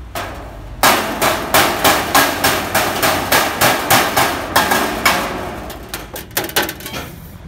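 Hand hammer striking a sheet-metal plate: a steady run of loud blows about three a second, then a few lighter, quicker taps near the end.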